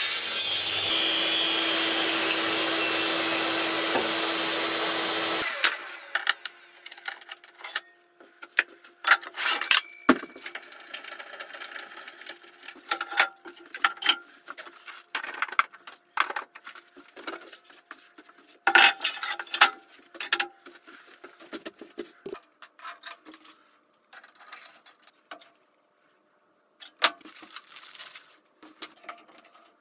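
Table saw running through a cut in aluminium extrusion with a steady whine, cutting off suddenly about five seconds in. After that, scattered sharp metallic clicks and knocks as the aluminium profiles and their bolts are handled.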